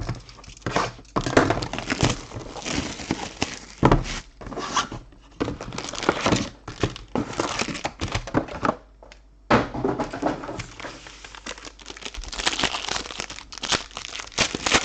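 Plastic wrapping of a box of 2019 Panini Prizm Premier League trading cards and its packs being torn open and crinkled by hand, in irregular bursts with a short lull about nine seconds in.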